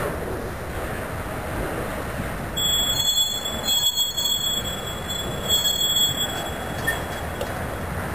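Freight train of autorack cars rolling slowly past, its wheels rumbling on the rails. From about two and a half seconds in, the wheels squeal on and off with a high, thin screech for about four seconds.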